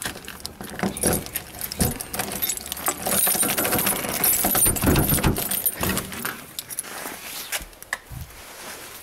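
A bunch of keys on a ring jangling, with sharp clicks and rattles as one key is worked into a brass doorknob lock and turned. The jangling is busiest a few seconds in and thins out near the end.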